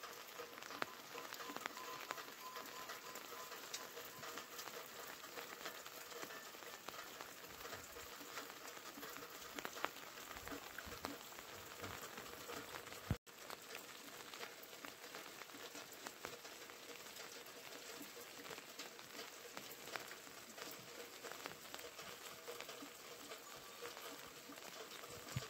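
Light rain pattering, with scattered drops dripping from a rock overhang, faint and steady. It breaks off for an instant about halfway through.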